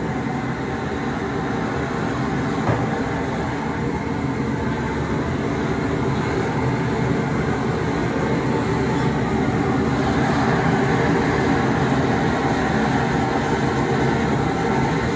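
Propane jet burner running at a high flame under a large boil pot: a steady rushing noise that grows slightly louder near the end.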